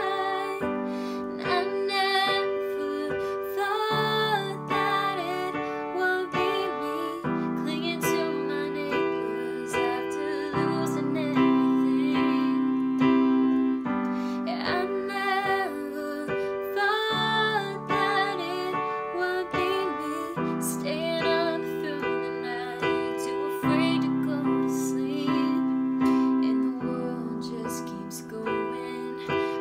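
A woman singing a slow, emotional ballad over piano accompaniment, the held chords changing about every three seconds beneath her wavering voice.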